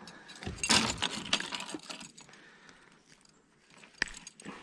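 Clinking and rattling of fishing gear being handled, loudest in the first two seconds, with one sharp click about four seconds in.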